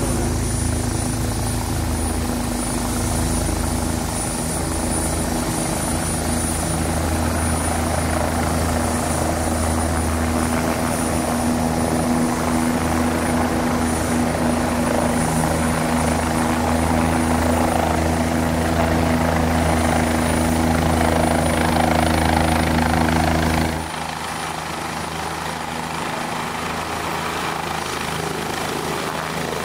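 OH-58D Kiowa Warrior helicopter flying in to land, its rotor and turbine engine making a steady, loud, even drone that slowly grows louder as it nears. About four-fifths of the way through the sound drops suddenly and the deep rumble falls away, leaving a lighter rotor sound from the hovering helicopter.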